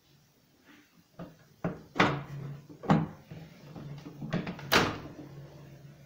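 About half a dozen sharp knocks and clicks of hands handling a microwave oven's plastic and metal casing and fittings, over a steady low hum that starts about two seconds in.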